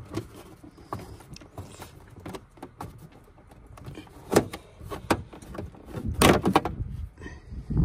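Plastic rear hatch side trim panel on a Toyota Grand Highlander being pried off by hand, its retaining clips letting go with sharp snaps: one about four and a half seconds in, a cluster around six seconds, and another at the end, with plastic rubbing and creaking between.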